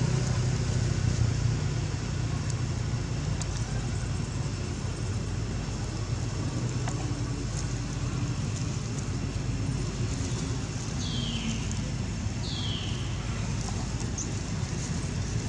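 Steady low hum of motor traffic or an engine running. About two-thirds of the way through come two short high calls, each falling in pitch, a second and a half apart.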